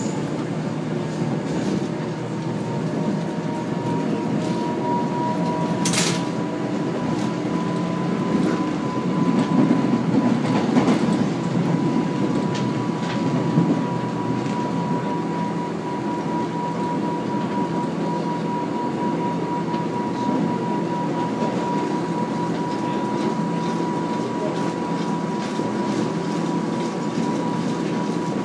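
Resistor-controlled electric commuter train running between stations. A steady rolling rumble carries a thin steady hum. There is one brief sharp high noise about six seconds in, and the rumble grows louder for a few seconds around ten seconds in.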